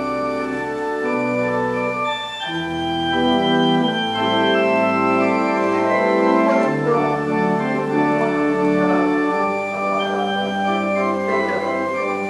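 Church organ playing the postlude: held chords over bass notes that change every second or so.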